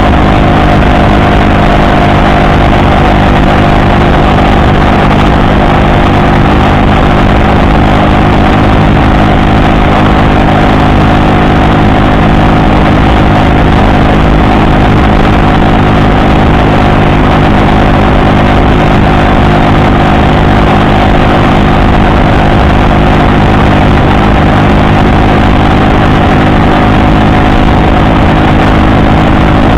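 Small 49cc Honda four-stroke single-cylinder moped engine exhausting through a short steel pipe with its silencer baffle fitted, running loud and steady at one unchanging engine speed.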